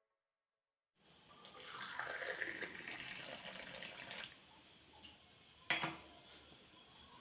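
Water running and splashing, loudest for about three seconds after it starts, then continuing more quietly, with one sharp knock near the end.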